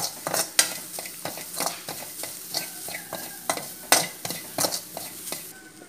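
Steel spoon stirring dried shrimp as they dry-roast without oil in a metal pan: irregular scrapes and clatters of the spoon against the pan, a few a second, over a steady hiss, the loudest stroke about four seconds in.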